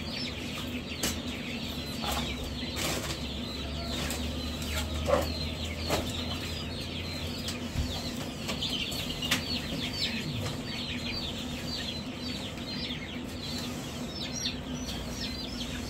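A brooder full of baby chicks peeping constantly, many short high falling peeps overlapping, with scattered knocks from the cages and a steady low hum underneath.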